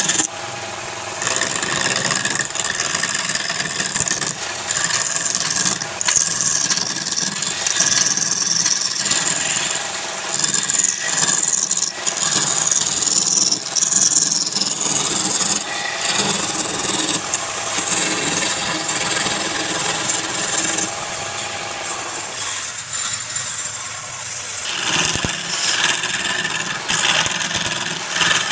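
Wood lathe running while a turning tool cuts into the spinning wood: a continuous scraping, hissing cut that swells and eases as the tool is worked, over the steady hum of the lathe's motor.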